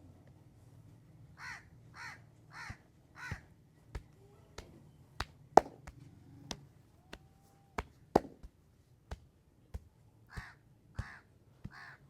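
A string of sharp cracks and slaps from a head and neck massage, the loudest about five and a half and eight seconds in. A bird calls in two runs of short harsh calls, four near the start and three near the end.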